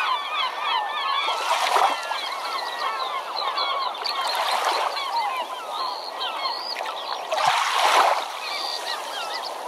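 A flock of birds calling all at once, many short overlapping squawks and chirps, with three louder rushing swells of noise about three seconds apart.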